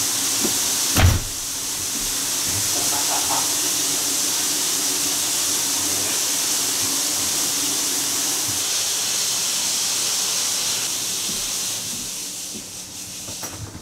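Pressurised water spraying with a steady hiss from a snapped supply line broken at its T fitting, dying away near the end as the water is shut off. A single knock about a second in.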